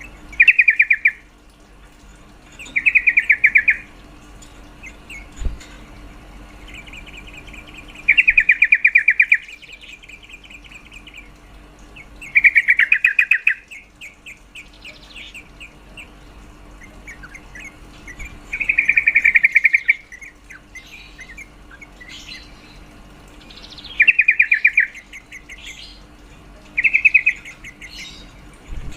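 Female yellow-vented bulbul (trucukan) calling: loud, rapid rattling chatters about a second long, repeated eight times at intervals of a few seconds, with fainter twittering between them. This is the female call used as a lure to provoke male bulbuls into singing.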